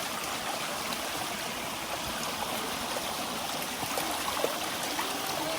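Steady running water, like a small stream flowing over stones.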